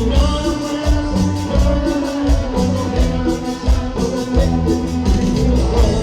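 A band playing Latin American dance music with a steady, even beat, bass notes and a held melody line.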